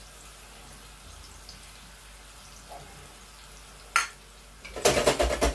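Chicken sizzling gently in oil in a wok on a gas hob. About four seconds in there is one sharp click, and near the end a quick clatter of rapid clicks and rattles from the stove or pan.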